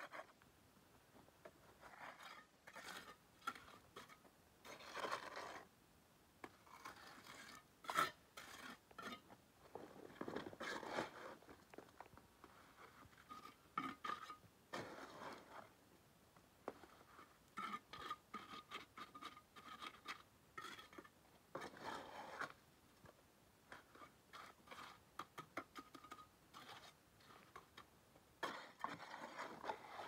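Quiet, irregular scraping and short knocks of hand work with tools and building material, with one sharper click about a third of the way in and a faint repeated high note around the middle.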